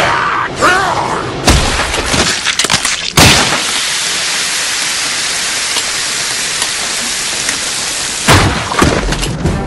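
Anime fight sound effects: a quick run of sharp crashes and impacts in the first three seconds, with a short wavering cry near the start. Then a steady hiss for about five seconds, and more crashes near the end.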